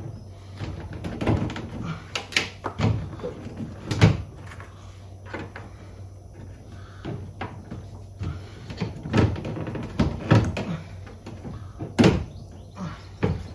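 Irregular plastic clicks and knocks from a tool being worked against the BMW M2's rear bumper trim clips. The clips are being pushed down to release them. The knocks come about a dozen times with pauses between them, over a steady low hum.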